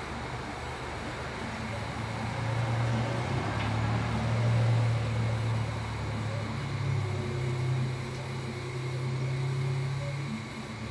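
Stepper motors of a laser engraver and its rotary turntable humming while the pen is turned and the laser head steps through a spider engraving. The low hum shifts in pitch and strength as the moves change, over a steady background hiss.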